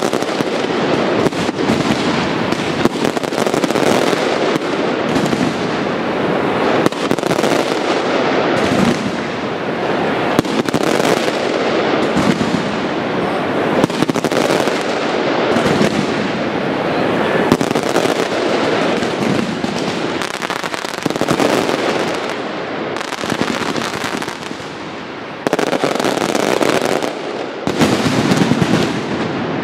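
Aerial fireworks display going off continuously: dense crackling and rapid bangs from many shells at once, with a short lull about 24 seconds in before it builds up again.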